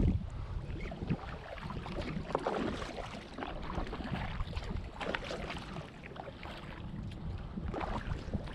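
Canoe paddle strokes: the blade dipping and pulling through calm water with irregular splashes and drips, over low wind rumble on the microphone.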